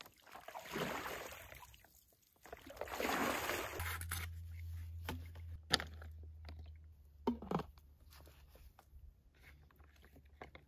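Lake water sloshing and gurgling in two surges as a soft plastic Sawyer Squeeze water bag is dipped and filled in the shallows. Then comes a quieter stretch with a few sharp clicks and crinkles of the bag and filter being handled, over a low steady hum.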